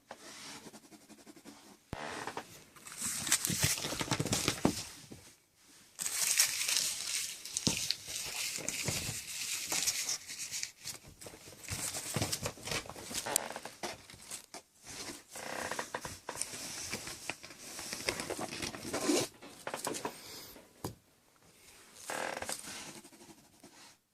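Kittens at play: irregular scuffling, rustling and scratching of small paws on a surface, with light knocks, in uneven spells.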